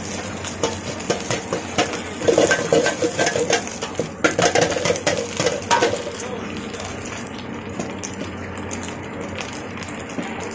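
Steel ladle scraping and clanking against a wok as fried rice is stirred, with ringing metal strikes. About six seconds in the stirring stops, and the rice sizzles steadily in the hot oil.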